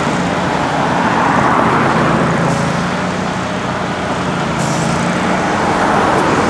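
Road traffic: vehicle engines idling and running slowly, a steady rumble with a low engine hum. Two faint short hisses come through about two and a half and four and a half seconds in.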